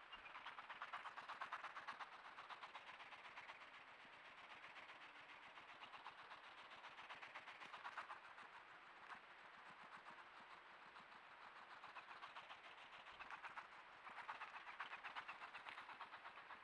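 Hedgehog chuffing: a faint, rapid, rhythmic train of puffs that keeps going, a little louder in the first few seconds and again near the end.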